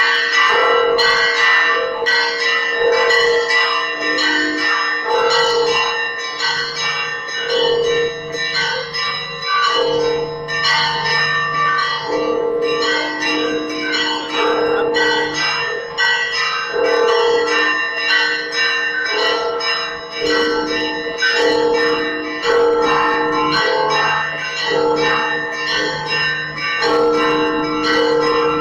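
Church bells pealing for the evening service: several bells of different pitches struck in quick succession, a deep bell sounding every so often under the higher ones, all ringing on over each other without a break.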